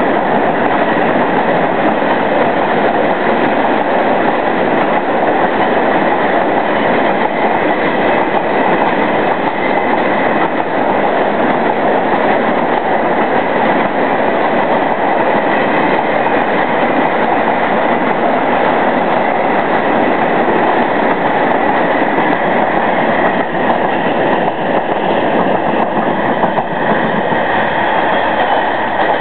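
Coal freight train rolling past on the track, a loud steady rumble of wagons with some clickety-clack and a faint high squeal from the wheels.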